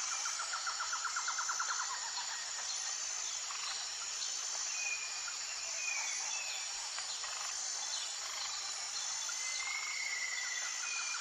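Jungle ambience: a steady high-pitched insect chorus, with a rapid pulsing trill over the first two seconds and a few short bird whistles later on, one longer whistle near the end.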